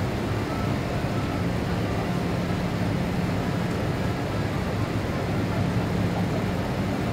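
Steady cabin noise inside a Boeing 787 Dreamliner airliner climbing after takeoff: an even rush of airflow over the engine drone of its Rolls-Royce Trent 1000 engines, with a constant low hum and no change in level.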